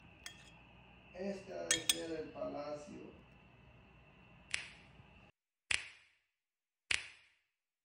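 Metal utensils clinking against a ceramic soup bowl: scattered sharp clinks with a short ring, about a second apart in the second half.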